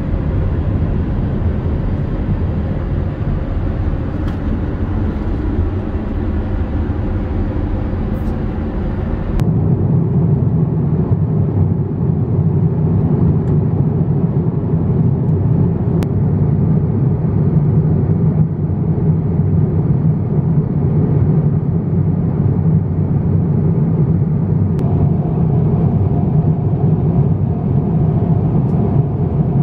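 Steady cabin noise of an Airbus A350-900 airliner in flight: an even rush and rumble with no speech. About nine seconds in, the sound abruptly changes character, with less deep rumble and a stronger mid hum. Near the end a faint steady tone joins it.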